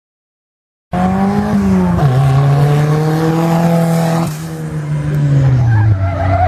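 Silence for about the first second, then a racing off-road buggy's engine running hard at high revs as it passes, its pitch stepping down once about two seconds in. Just after four seconds the sound changes suddenly to another racing engine at speed, its pitch falling steadily.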